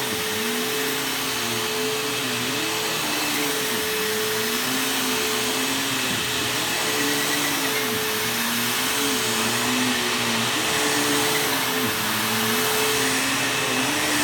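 Bissell bagless vacuum cleaner running steadily while vacuuming carpet. A steady tone is joined by a lower pitch that dips and recovers every second or two.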